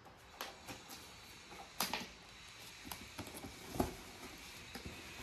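A YouTube Silver Play Button's delivery box being opened by hand: faint rustling with scattered knocks and scrapes, the loudest about two seconds in and again near four seconds in.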